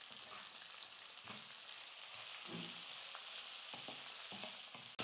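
Faint sizzling of sliced onions, curry leaves and green chillies sauteing in oil in a kadai, with a few soft strokes of a wooden spatula stirring them.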